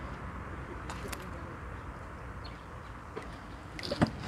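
Landing net and tackle being handled as a crucian carp is netted: a few light clicks about a second in and a sharp knock near the end, over a steady outdoor hiss.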